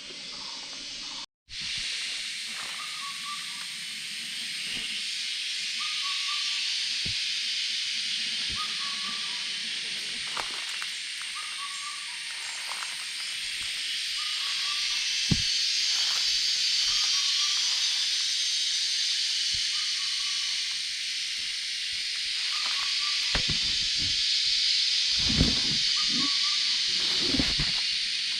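Short quail calls repeating about every second and a half over a steady high hiss of night insects, as used to lure quail. There are a few soft rustles and knocks near the end.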